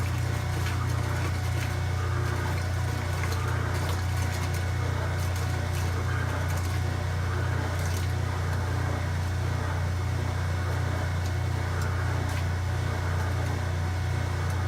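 Kenmore 90 Series washing machine in its rinse/drain stage: a steady low whirring hum with water noise over it. The whirring is the unwanted noise the owner is recording.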